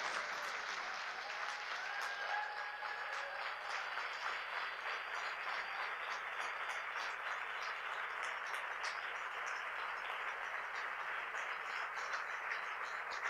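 Audience applauding in a large hall: steady, even clapping from many people throughout.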